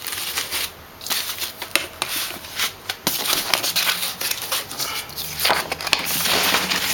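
Cardboard product box and packaging being handled close to the microphone: rustling and scraping with many small clicks, getting busier about halfway through.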